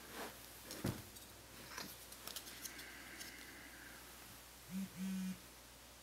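Light clicks and rustles of a USB cable and a memory card being handled, with a sharp knock about a second in. Near the end come two short low hums, the second a little longer.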